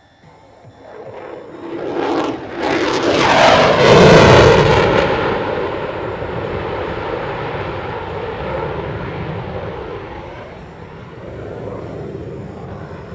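F-22 Raptor fighter jet with twin Pratt & Whitney F119 turbofans making a low pass. Its roar builds over a couple of seconds, is loudest about four seconds in with a sweeping, phasing rush, then fades into a long rumble.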